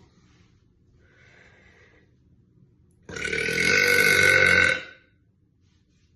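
A woman burping: one long, loud burp of nearly two seconds that starts suddenly about three seconds in and holds a steady pitch.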